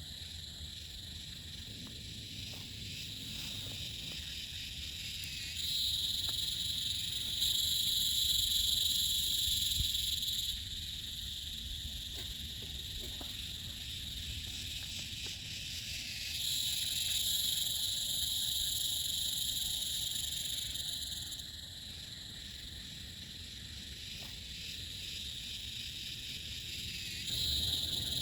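A chorus of frogs and insects calling in steady high-pitched bands. It swells and drops back in steps every few seconds: louder about six seconds in, again around seventeen seconds, and near the end. A faint low rumble runs underneath.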